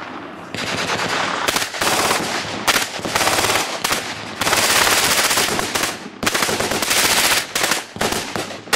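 An Uzi submachine gun firing on full automatic in a series of bursts with short pauses, the longest burst lasting well over a second near the middle.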